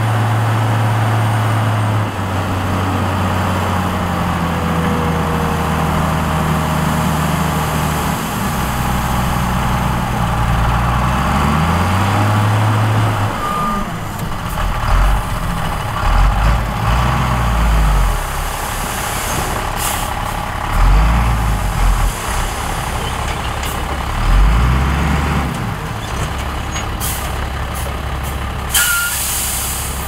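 Heavy diesel engine running, steady at first, then revving up and down several times. Sharp air-brake hisses sound out a few times, mostly near the end.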